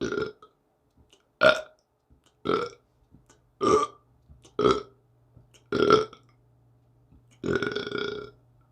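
Someone burping seven times in a row, about one a second; the last burp is the longest.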